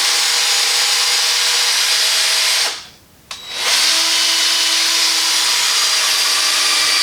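Small electric polisher with a 3-inch buffing pad running steadily, working finishing polish into a headlight lens. It stops for about a second a little before the middle, then starts up again and runs on.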